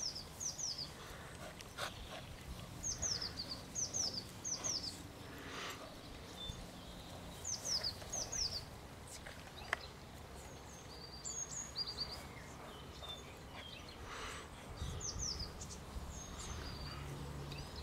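Small birds chirping: short falling calls in quick twos and threes, repeated throughout. Faint rustling of a towel being rubbed over a dog.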